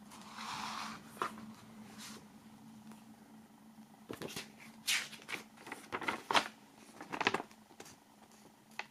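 Paper handling: a booklet's pages being turned, with a soft sliding rustle near the start and a run of sharp paper crackles and taps in the second half. A faint steady low hum sits underneath.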